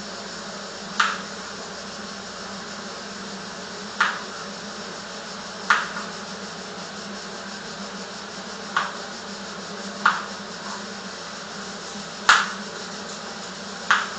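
A kitchen knife cutting through zucchini and striking a cutting board: seven sharp, separate knocks spaced a second or more apart, as each zucchini is cut into three pieces.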